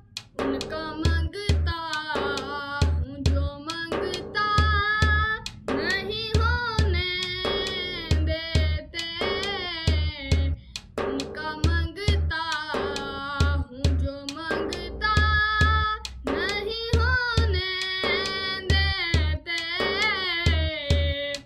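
A boy singing an Urdu naat solo, long wavering held notes in phrases, over a steady drum beat.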